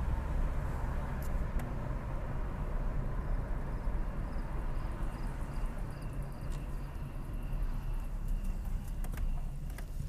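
Car driving along with a steady low rumble of engine and road noise. In the middle a faint high chirping pulses about twice a second, and from about six seconds in a faint steady high tone joins it.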